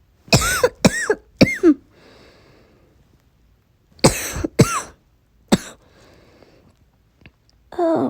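A person coughing in two fits of about three coughs each, a few seconds apart, with faint breathing between: the repeated cough of someone with a cold and sore throat.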